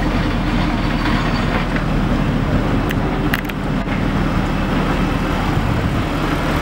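David Brown Speedback GT's supercharged 5.0-litre V8 idling steadily, with no revs.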